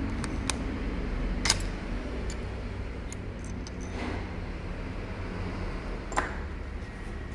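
Small metal parts of a Bosch diesel injection pump clicking and tapping as they are handled and taken out during disassembly, with a sharp click about one and a half seconds in and another about six seconds in, over a steady low hum.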